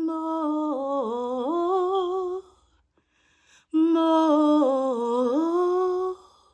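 A woman singing unaccompanied: two long, drawn-out phrases on held notes with no clear words, each sliding down in pitch and back up, with a short pause between them.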